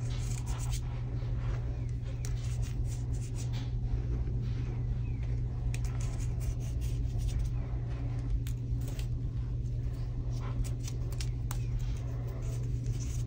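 Fingers pressing and raking through a pile of crushed, dyed gym chalk, making a dense run of small crunches and crackles. A steady low hum runs underneath.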